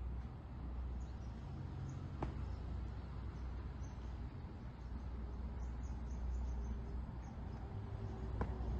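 Open-air background: a low steady rumble with faint chirping of birds and insects, and two single sharp taps, one about two seconds in and one near the end. The one near the end is a drill boot stamped down on asphalt.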